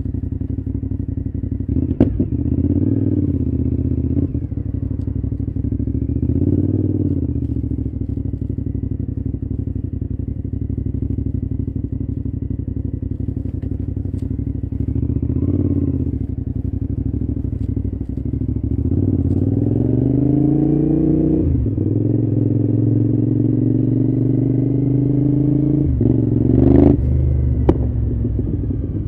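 Cagiva V-Raptor 1000's Suzuki-built 996 cc V-twin engine running steadily, with a few short rises in revs. About two-thirds through, the revs climb for a couple of seconds, then drop and hold level. A short sharp knock comes near the end.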